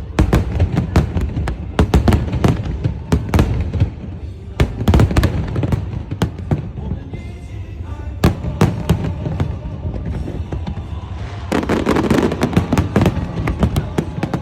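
Fireworks display: a rapid, irregular string of shell bursts, sharp bangs over low booms, with a dense flurry of bursts near the end.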